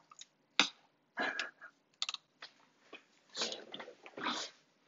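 Hard plastic gripper parts of an Omnibot 5402 toy robot clicking and rattling as they are handled and pressed together, with one sharp click about half a second in and short scraping clatters after it.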